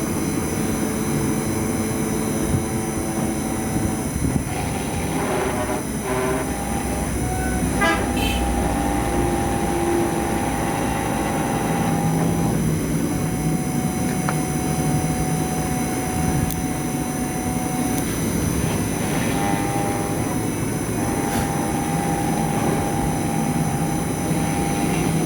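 CNC router engraving a brass plate: a steady high-pitched spindle whine over mechanical running noise, with the axis motors' whirring tone starting and stopping every few seconds as the tool moves.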